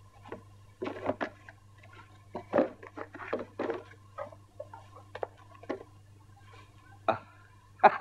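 Clothing rustling and soft handling noises, irregular and scattered, as people undress and change clothes, over a steady low hum.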